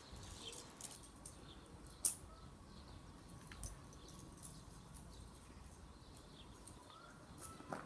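Quiet outdoor ambience: faint bird chirps with scattered small clicks, one sharper click about two seconds in.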